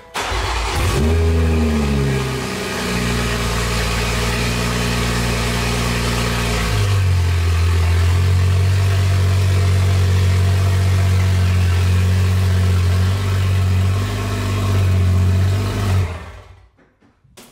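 2021 BMW M340i's turbocharged 3.0-litre inline-six cold-starting: the revs flare up and settle to a fast idle. The note turns lower and stronger about seven seconds in as the car is eased backward a short way, and the engine shuts off about a second and a half before the end.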